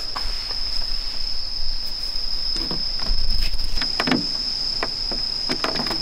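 Crickets trilling steadily on one high, unbroken note, with a few light clicks and knocks from plastic air-conditioner parts being handled.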